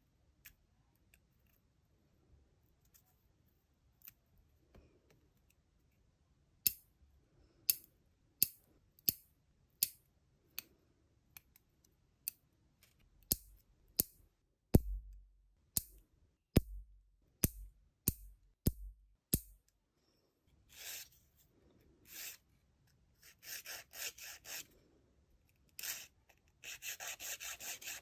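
Steel nail clippers snipping fingernails, about fifteen sharp clicks roughly one a second. Near the end come short rasping strokes of a wooden nail file on the nails.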